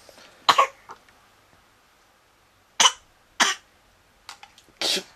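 Imitation sneezes: short, explosive, breathy bursts of voice, about four of them spaced a second or so apart, with fainter puffs between.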